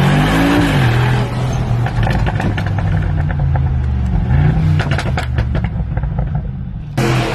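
Mercedes-AMG G63's twin-turbo V8 through a tuned exhaust, revved twice: the revs rise and fall near the start and again about four seconds in. As the revs drop off, a string of sharp pops and crackles follows.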